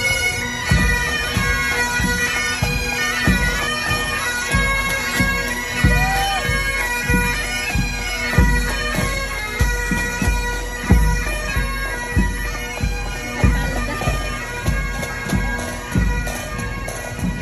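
Background music: a melody played over a steady, unchanging drone, with a regular drum beat.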